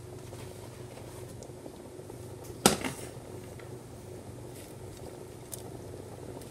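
Steady low hum of room tone, with one sharp click about two and a half seconds in and a few faint ticks.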